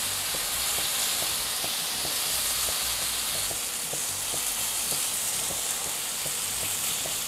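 Oiled plant-based chicken skewers sizzling steadily on a hot grill, with faint crackling, as the sweet soy sauce brushed on them caramelizes.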